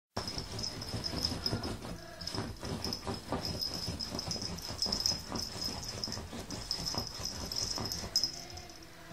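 A Staffordshire bull terrier puppy digging at bedsheets with its front paws: rapid, irregular scratching and rustling of the fabric under its claws. A high steady tone runs underneath.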